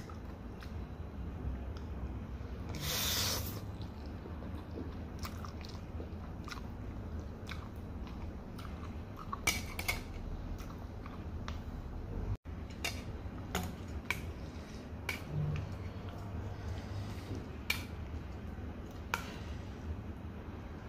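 Close-up chewing of fried noodles, with scattered light clicks of wooden chopsticks against a steel bowl, over a steady low hum. A short, loud hiss comes about three seconds in.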